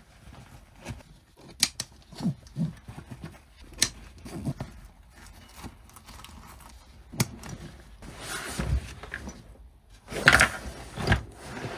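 Nylon replica Savior rifle carrier being handled with gloved hands: fabric rustling and scuffing, with scattered sharp clicks and taps. Louder, longer rustling comes about eight and ten seconds in as the bag is shifted and turned over.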